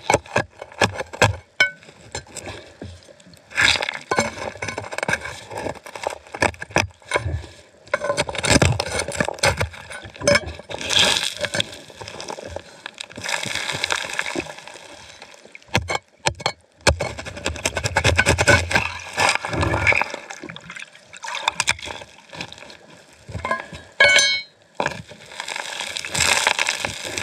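Underwater scraping and knocking of a metal crevice tool working packed gravel out of a bedrock crack, with stones and grit clattering as a gloved hand digs, over the rush of the stream. The knocks come irregularly, several a second at times.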